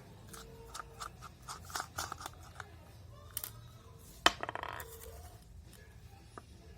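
Small clicks, taps and scratches of a handheld Digivice toy and its small parts being handled during repair, with a sharp click about four seconds in followed by a brief buzzy tone.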